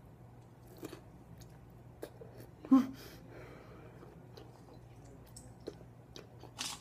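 A person chewing hot peppers: soft, wet chewing and mouth clicks, with a short vocal noise about three seconds in and a brief sharp sound near the end.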